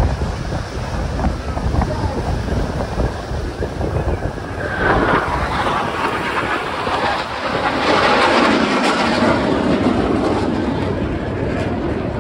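Wind buffeting the microphone, with broad jet noise from a Blue Angels F/A-18 Super Hornet swelling from about five seconds in, loudest a few seconds later, then easing as the jet passes.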